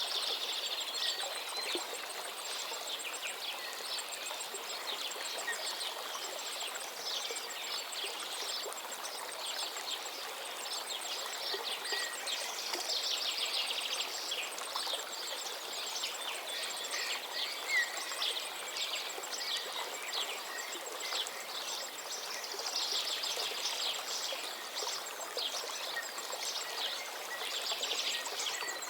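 Many birds chirping and trilling over the steady rush of a stream or small waterfall.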